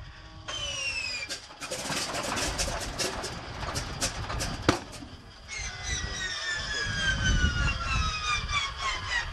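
Antonov An-2's nine-cylinder radial engine starting up: uneven popping and coughing as the cylinders fire and catch, with a sharp crack about halfway through and falling whines at the start and again later.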